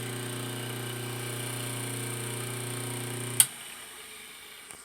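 Bench lathe's two-speed centrifugal-start induction motor running on its low 1725 RPM setting with a steady, smooth hum. About three and a half seconds in a sharp click comes and the hum stops abruptly, leaving a fading whir as the motor coasts down.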